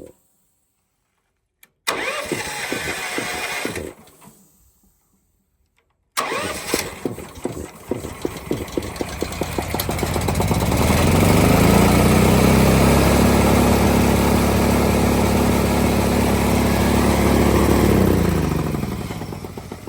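Gasoline engine of a Caster portable air compressor running, broken by a couple of abrupt silent gaps early on. About halfway through it speeds up, holds a steady higher speed, then slows back down near the end.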